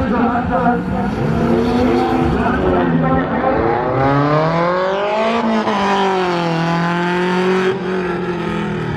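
A car engine running hard at a race track, its pitch climbing steadily for about a second and a half midway and then slowly falling.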